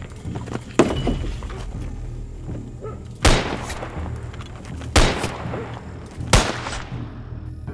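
Three pistol shots, about a second and a half apart, each with a ringing tail. A sharper, smaller knock comes about a second in.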